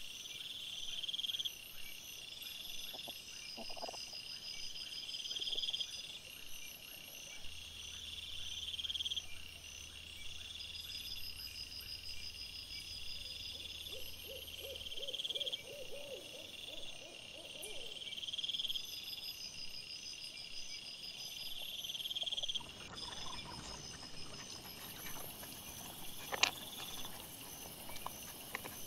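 Night insect chorus: a shrill trill that swells and fades about every two seconds, over fainter high pulsing. A short run of rapid low pulses comes about halfway through. Rustling with a few sharp knocks follows for the last few seconds.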